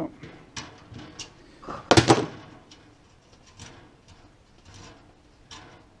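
A tap and T-handle tap wrench being handled and taken out of a freshly tapped hole in a metal computer case: scattered light metal clicks, with one louder clack about two seconds in.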